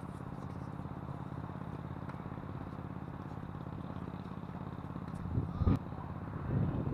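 Wind buffeting the action camera's microphone: a steady low rumble with a fast flutter, swelling into a stronger gust a little after five seconds in. A single sharp click comes at the peak of that gust.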